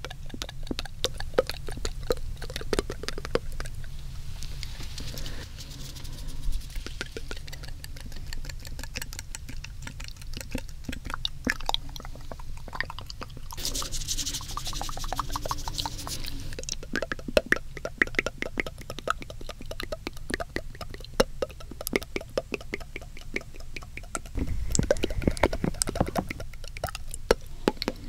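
Close-up, layered wet mouth sounds: rapid tongue clicks and lip smacks. A breathy hiss comes in about halfway through, and a low rumble comes near the end.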